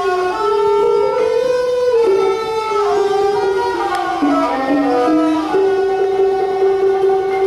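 Thai traditional ensemble playing: bowed two-string fiddles (saw) carry a slow melody of long held notes that step and slide between pitches, with a wooden ranat xylophone struck with mallets.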